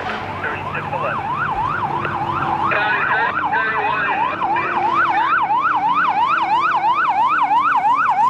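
Fire engine's electronic siren on yelp: a fast rising-and-falling wail about three to four times a second that starts about a second in and grows slightly louder as the engine approaches.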